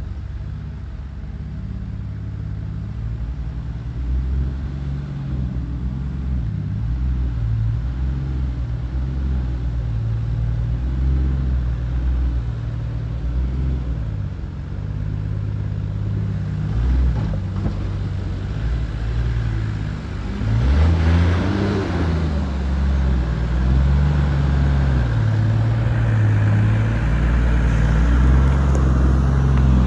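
Toyota LandCruiser 80 series engine running at low revs as the four-wheel drive crawls up a rocky track, with the revs stepping up and down and a short burst of revving about two-thirds of the way through. It grows louder near the end as the vehicle comes close.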